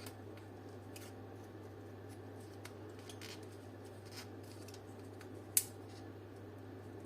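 Small plastic clicks and scrapes as a pick works at the retaining tabs of an old Hella car dome light housing, with one sharper click about five and a half seconds in. A steady low hum runs underneath.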